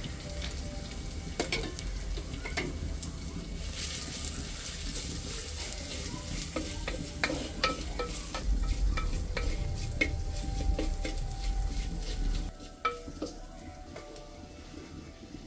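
Ginger and garlic sizzling in hot oil in a clay pot over a wood fire, being fried before the onions go in. A wooden spatula stirs them, with many small knocks and scrapes against the pot. The sizzle drops quieter near the end.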